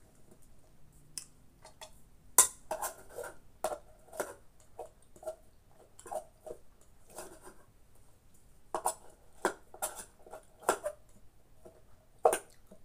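Scattered clicks and clinks of a spoon or hand working in an aluminium pot over a plate, with two louder knocks, one about two seconds in and one near the end.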